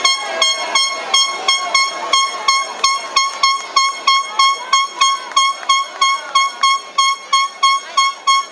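A high, pitched horn-like beep repeating evenly about three times a second, with crowd voices underneath.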